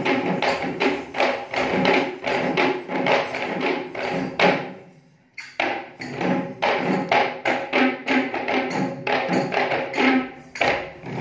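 Sri Lankan Kandyan drums, geta bera barrel drums among them, beaten by hand in a fast, dense rhythm. The drumming breaks off for about a second, roughly five seconds in, then starts again.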